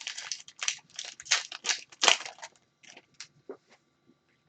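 2021-22 Upper Deck Artifacts hockey trading cards and their plastic wrapping being handled: quick irregular rustles, slides and crinkles, busiest in the first couple of seconds and thinning out after.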